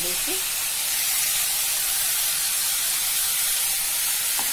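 Bitter gourd and other sliced vegetables sizzling in hot oil in an iron kadai, a steady hiss, with a light click near the end.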